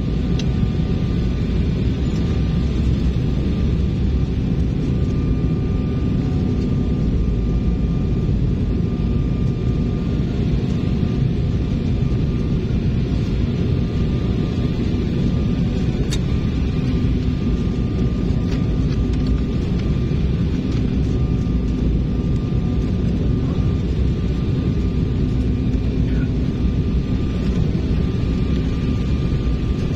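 Cabin noise of an Embraer E190 jet airliner on final approach with flaps extended, heard inside the cabin over the wing: a steady low roar of engines and airflow with faint steady whining tones. There is a single brief click about halfway through.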